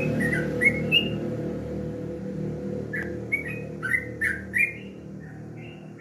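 Yellow-vented bulbul (trucukan) singing short chirping notes in quick runs, one at the start and another about three to five seconds in. A low hum fades away underneath.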